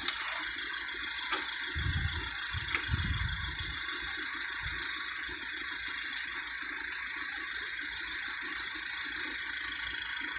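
Nissan 240SX's 2.4-litre four-cylinder engine idling steadily, freshly revived after sitting for nine years. A few low thumps come about two to three seconds in.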